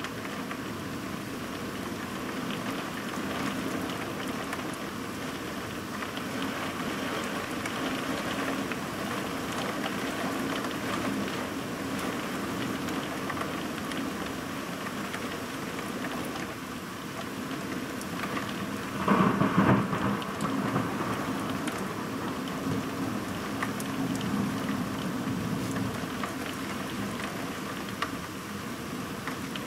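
Heavy rain falling steadily in a thunderstorm, with a loud burst of thunder about two-thirds of the way in.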